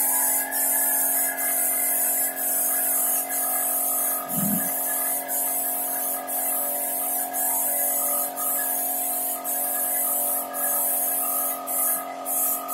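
Spray gun hissing in bursts about a second long with brief breaks between them, over the steady hum of an electric air compressor running.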